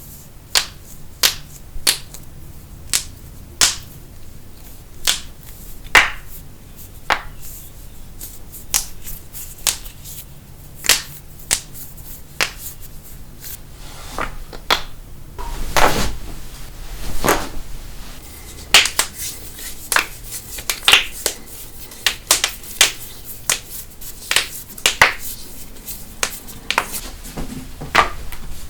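Human joints being cracked: an irregular series of sharp pops and cracks, about one or two a second and bunching closer together in the second half, some louder than others.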